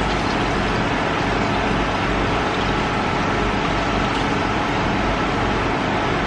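Tap water running steadily into a stainless-steel sink as meat is washed by hand in a plastic bowl beneath it.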